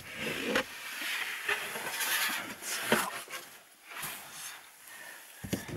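A thin wooden board being handled against a wooden cabinet front and pulled away: scraping and rubbing with a few light knocks.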